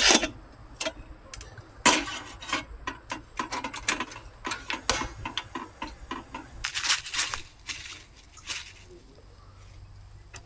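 Irregular clicks and knocks of objects being handled, several a second in places, loudest at the very start, about two seconds in and around seven seconds in.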